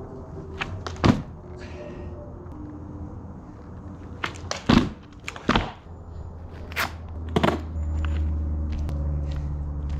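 A snowboard practice board knocks and thuds against a mat on gravel as the rider hops, spins and lands on it. There are about ten sharp, irregular knocks, the loudest about a second in and around the middle. A low steady hum swells up near the end.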